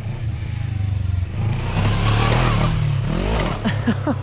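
Motorcycle engine running and revving as the bike accelerates, louder through the middle, with a rise and fall in engine pitch about three seconds in.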